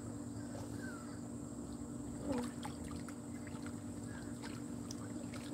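Gentle lapping and small splashes of pool water as a swimmer moves slowly, with scattered soft clicks, a few more near the end. A steady low hum and a thin high steady tone run underneath.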